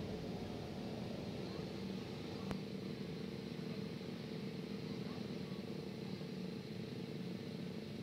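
Racing kart engines running slowly at a distance, a steady low hum, with a single sharp click about two and a half seconds in.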